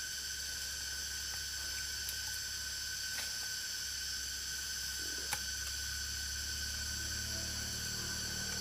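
Steady, high-pitched drone of forest insects, with a few light clicks, the sharpest about five seconds in, from hands working the string of a bamboo crossbow trap.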